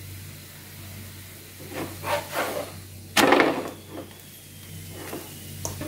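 Wooden spatula scraping and pressing a stuffed wheat paratha on a hot oiled pan: a handful of short scrapes and knocks, the loudest about three seconds in, over a faint steady sizzle of oil.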